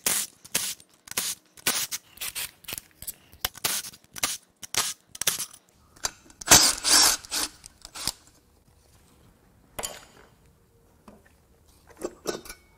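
A cordless ratchet runs in short bursts, two to three a second, backing out the bolts of a Nissan VQ35HR's aluminium lower intake plenum. About six and a half seconds in there is a longer, louder scraping clatter as the plenum is worked loose, followed by a few scattered knocks.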